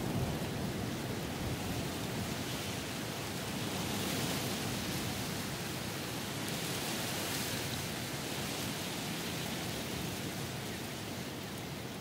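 Strong wind blowing through rainforest trees and foliage, a steady rushing that swells and eases in gusts.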